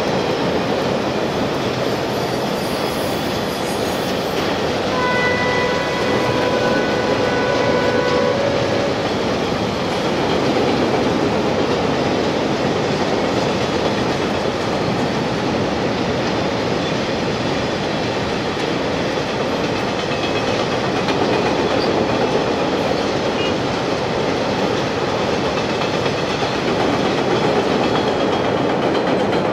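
Freight train hauled by an HXD1C electric locomotive crossing a steel truss railway bridge: a steady, loud rumble and clatter of wagon wheels on the rails. About five seconds in, a single held horn note sounds for about three seconds.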